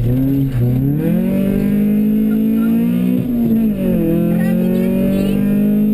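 Rally car engine heard from inside the cabin, pulling hard under acceleration. Its pitch climbs sharply about a second in, drops with a gear change about four seconds in, then climbs again.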